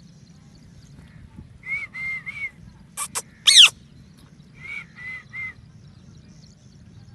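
Parrot calling: three short chirps, then two sharp squawks and a loud falling screech a little after three seconds in, then three more short chirps.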